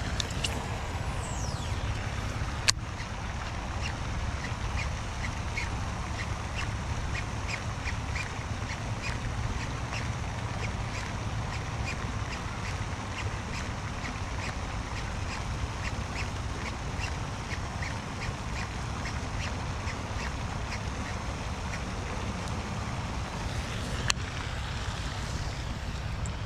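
Outdoor ambience: a steady low rumble, with a short high call repeated about twice a second through much of the stretch, likely an animal. Two sharp knocks stand out, one near the start and one near the end.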